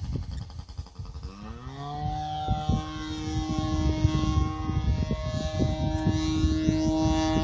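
OS .55AX two-stroke glow engine of an RC model plane, spinning a 13x6 propeller through a Pitts-style muffler; its note rises about a second in, then holds a steady high whine. Wind rumbles on the microphone underneath.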